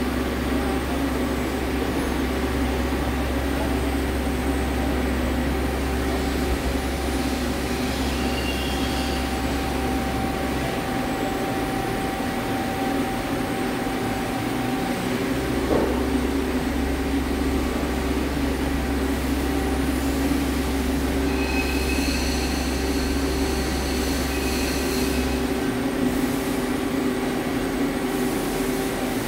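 Steady mechanical hum with several steady whining tones from a Hyundai Wia L300MSC CNC turning center standing powered on with its spindle stopped. A deep low hum cuts out about 11 s in, comes back about 4 s later and stops again near 26 s, and faint high whines come and go.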